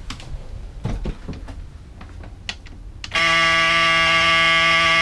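A few faint knocks of moving about, then about three seconds in the boat's helm engine-alarm buzzer comes on with a loud, steady electric tone. The ignition key has been switched on and the main engine is not yet running.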